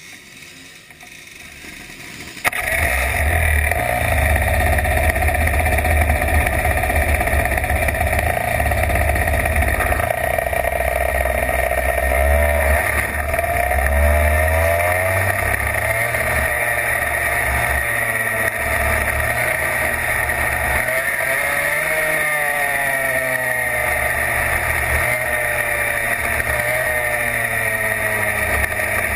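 Racing kart engine heard from onboard: after a quieter, rising start, it comes in loud and sudden about two and a half seconds in, then runs steadily at speed, its pitch rising and falling a few times as the kart is driven around the track.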